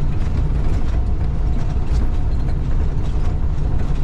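Semi truck's diesel engine and road noise heard from inside the cab: a steady low rumble with a haze of tyre and wind noise, and faint scattered clicks.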